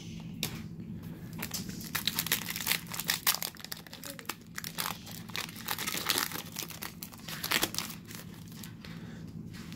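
A foil pack of Panini Contenders football trading cards being torn open and crinkled by hand: a run of irregular crackles and rustles that thins out near the end.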